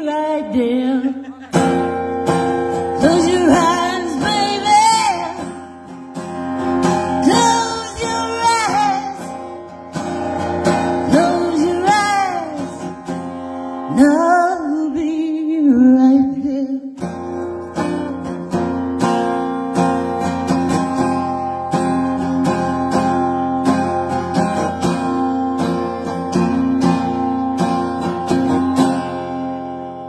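A woman singing with a strummed acoustic guitar. The voice stops a little past halfway, and the guitar plays on alone.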